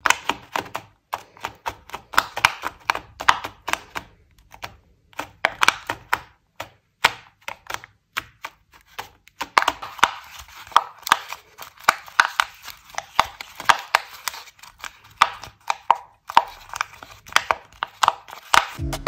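Folded-paper origami pop-it bubbles pressed in by fingertips: an irregular run of crisp paper pops and clicks, several a second.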